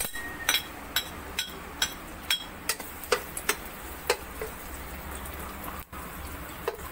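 Chopped garlic frying in hot cooking oil in a wok: a steady sizzle with irregular pops and crackles of spitting oil, the pops coming less often toward the end.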